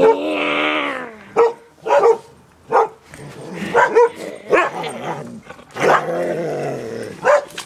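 Small terrier barking in a string of short, sharp yaps spread over several seconds, with longer growling or whining sounds between them, while it tussles in play.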